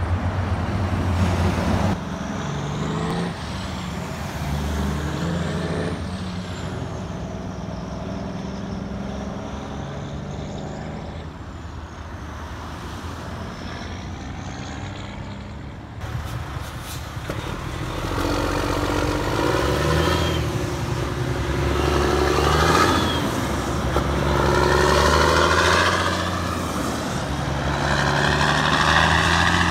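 Diesel semi-truck engines pulling away and running up through the gears, their pitch climbing and dropping back at each shift, over passing road traffic. Several trucks go by in turn, the loudest in the second half.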